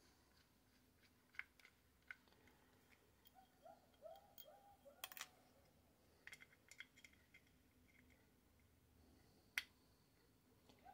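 Faint clicks and small metallic ticks of a small screw being worked loose from a radio transceiver's metal part, with scattered sharp clicks, the loudest near the end. A few faint short squeaks come in the middle.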